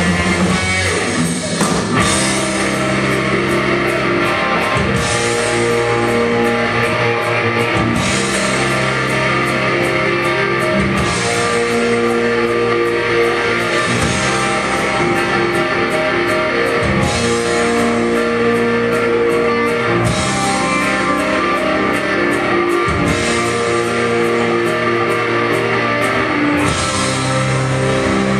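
Live rock band playing guitar and drum kit. The chords change about every three seconds over a steady cymbal beat.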